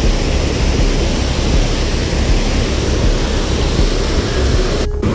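Water pouring over a low dam spillway into the pool below: a loud, steady rush of falling water. It breaks off for an instant near the end.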